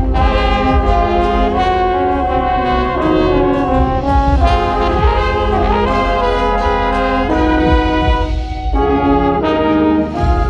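Brass-led wind ensemble music playing loud, sustained chords that change every second or so, over a deep low rumble.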